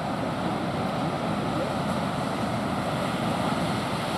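Ocean surf breaking and washing along the beach: a steady rush of waves, with some wind noise on the microphone.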